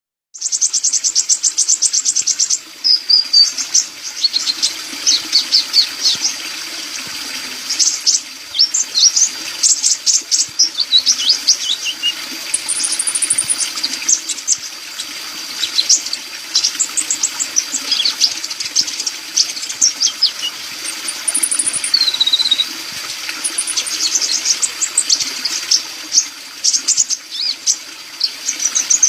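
Sunbird singing: a fast stream of high chips, rattling trills and short falling whistles, over a steady hiss.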